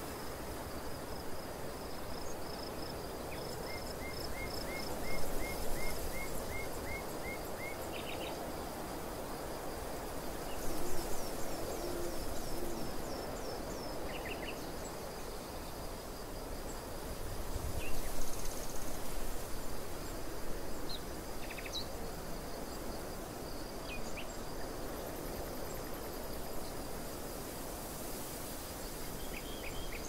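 Outdoor ambience of wind over an open field, rising in gusts a few times. Small birds call over it, with a run of a dozen evenly spaced chirps a few seconds in and scattered short calls later, above a thin steady high trill.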